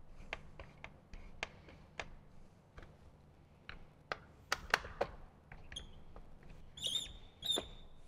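Scattered small clicks and taps of a 3/16 Allen key working the bolts of a plastic speaker pod, with two short high squeaks near the end as the plastic pod is pressed and handled.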